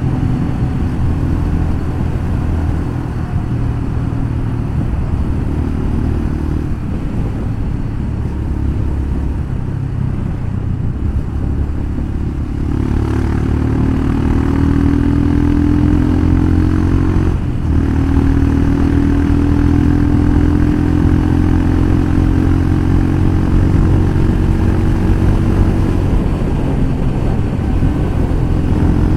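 Royal Enfield Scram 411's single-cylinder engine running through a full-system aftermarket exhaust. About halfway through it pulls harder and gets louder, with a brief break a few seconds later before it carries on strongly.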